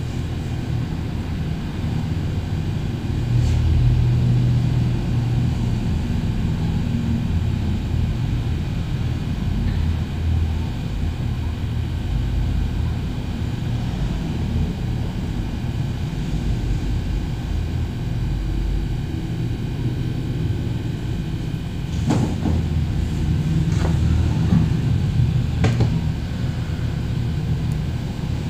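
A steady low rumble that swells and eases in strength, with a few faint clicks near the end.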